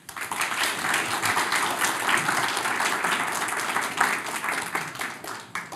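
Audience applauding, a room full of people clapping; it starts at once, holds steady, then thins out and stops near the end.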